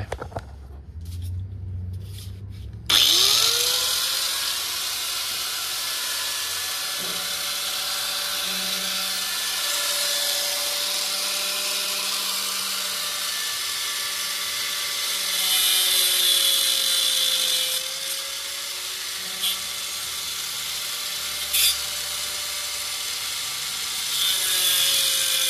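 Corded angle grinder with a cutoff wheel switched on about three seconds in, whining up to speed, then running and cutting through a part that would not come off, louder in a stretch past the middle as the wheel bites.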